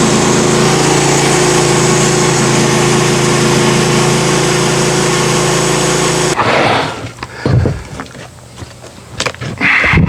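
Portable band sawmill's engine running steadily at speed, then cutting off suddenly about six seconds in, followed by a few scattered knocks and clatters.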